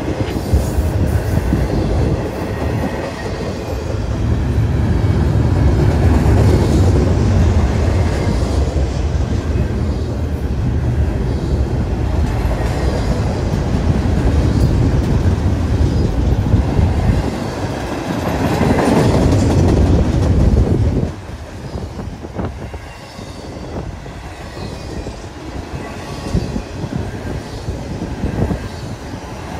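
Union Pacific intermodal freight train rolling past close by, its double-stack container well cars rumbling and the wheels clicking over rail joints. The heavy low rumble drops away suddenly about two-thirds of the way through, leaving lighter clatter and clicks.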